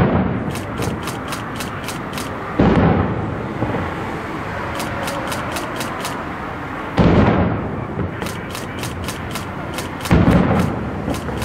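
Aerial fireworks shells bursting in heavy booms every three to four seconds, each followed by a rolling echo that dies away over about a second, over a constant rumble of further bursts. Short runs of faint, evenly spaced high clicks sound between the booms.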